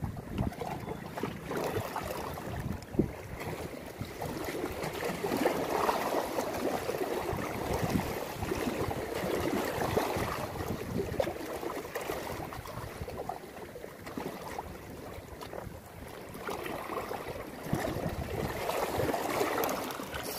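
Seawater lapping and splashing against the rocks of a seawall, swelling and fading irregularly, with wind buffeting the microphone.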